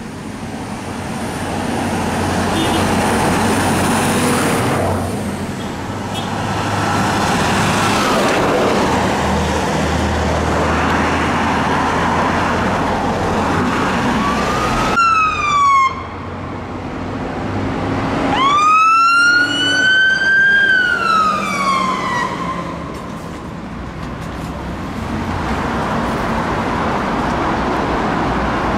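Fire engines on blue lights: a heavy truck's diesel engine and tyre noise swell and fade as one drives past. From about halfway in, an emergency wail siren sweeps sharply up, holds, then falls away, and starts rising again near the end.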